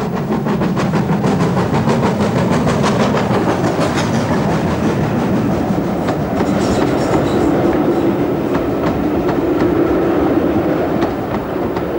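GWR Manor class 4-6-0 steam locomotive passing close by, then its coaches rolling past with a steady rumble and rhythmic clickety-clack of wheels over rail joints.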